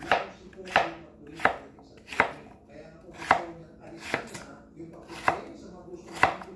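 A kitchen knife chopping food on a cutting board: about eight separate cuts at a slow, slightly uneven pace, roughly one a second.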